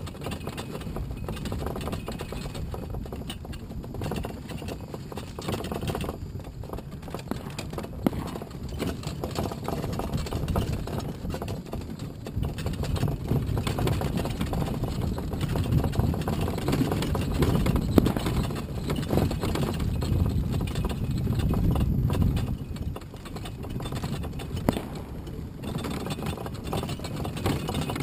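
Miniature Seagrave-style fire truck driving over bumpy grass: a continuous low rumble with knocking and rattling over the rough ground, louder through the middle and dropping briefly near the end.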